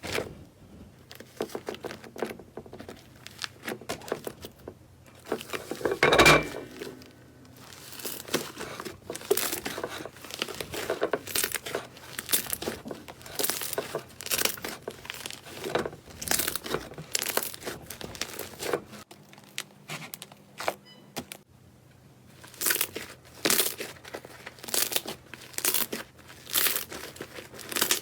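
Slime being squeezed and pressed by hand, giving crinkly, crackling pops in repeated short bursts, with one louder burst about six seconds in.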